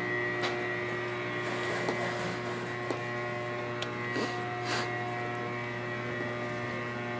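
Steady hum of an industrial netting sewing machine's motor running without stitching, holding several fixed tones. A few soft clicks and two short rustles, about four and five seconds in, come from vinyl tape and netting being handled at the machine.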